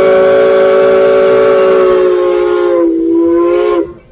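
Steam locomotive whistle blowing one loud, long blast, heard up close in the cab, sounding several notes together as a chord. Its pitch sags slightly about three seconds in and the blast cuts off just before the fourth second.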